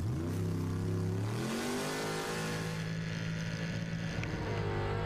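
Drag race car's engine accelerating hard on ice: the pitch climbs as it pulls away, climbs again about a second and a half in, then holds at high revs.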